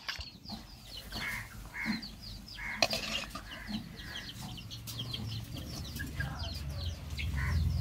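Domestic chickens clucking, with a steady run of short, high, falling chirps from small birds behind them. A low rumble grows louder over the last few seconds.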